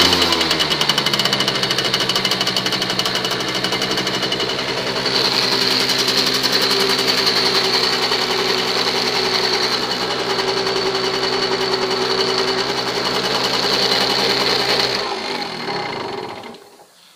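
Simson Schwalbe KR 51/1 moped's 50 cc single-cylinder two-stroke engine idling, settling to a steady idle in the first second. Near the end it is switched off with the ignition key and runs down to a stop.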